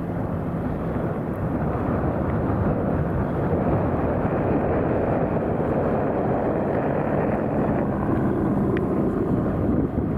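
Wind buffeting the microphone: a steady low rush of noise.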